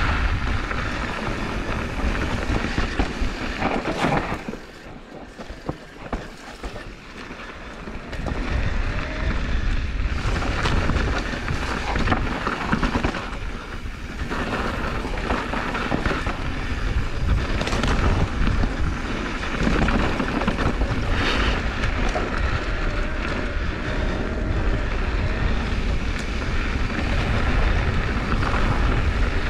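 Wind rushing over the camera microphone while a mountain bike rolls fast over dirt singletrack, with tyre crunch and the bike rattling over bumps. It drops quieter for a few seconds about four seconds in, then picks back up.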